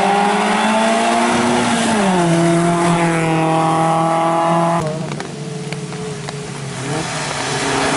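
Rally car engine running hard up a hillclimb stage. Its pitch falls about two seconds in, then holds, and it cuts off suddenly just before five seconds. A quieter hiss with a few sharp clicks follows, and another car's engine rises in near the end.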